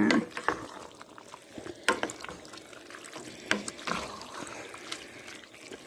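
Wet sloshing of a pot of noodle stew in canned vegetable juice as chopped hot dogs are added, with a few sharp clicks of a utensil against the pot.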